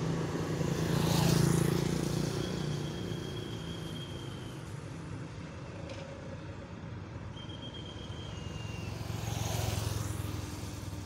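Road traffic: a vehicle passes close by about a second in, then the road quietens until another vehicle approaches and passes near the end. A faint thin high tone sounds twice in between.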